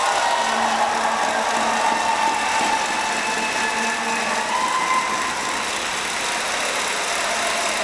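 Crowd in a sports hall applauding and cheering steadily, with a long held tone above it that shifts pitch a few times.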